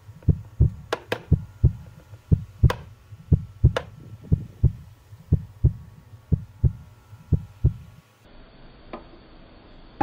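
Fast, steady heartbeat sound effect, low thumps about three a second, cutting off about eight seconds in, with a few light clicks over it.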